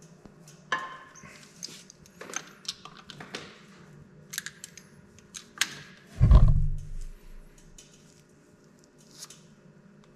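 Light metal clicks and clinks as a mechanical fuel pump and its bolts are handled and fitted against an engine block, with one heavy, dull thump about six seconds in.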